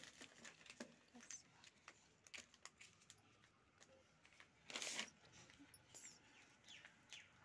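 Faint scattered clicks and rustling of goods being handled, with one louder rustle about five seconds in.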